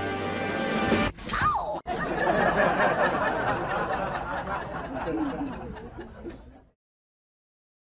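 People laughing and talking, cutting off to silence a little before the end.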